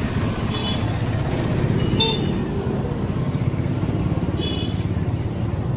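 Steady rumble of road traffic, with a few short high-pitched sounds about half a second, two seconds and four and a half seconds in.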